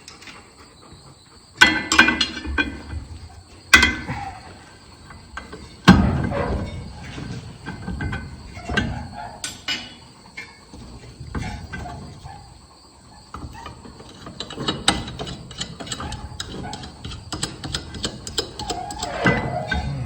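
Hand tools working against the metal of a John Deere 6620 combine as a drive belt's tension is loosened. Three loud metal clanks come in the first six seconds, followed by a run of lighter clicks and rattles.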